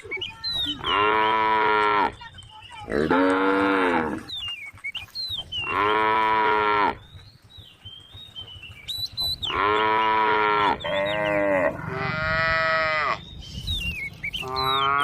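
Cows mooing over and over: about seven long, fairly high-pitched calls of one to two seconds each, with short pauses between them.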